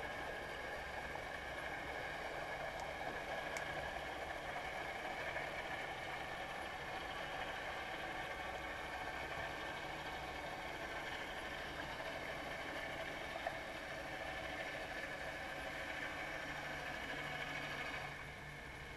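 Steady underwater hiss and low hum heard through a GoPro's waterproof housing, with a few faint clicks; the level dips slightly near the end.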